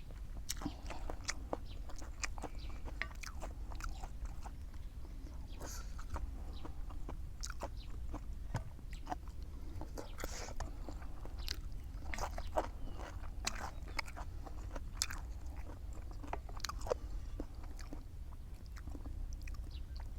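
Close-up eating sounds: chewing and biting with irregular sharp, crisp crunches, over a steady low hum.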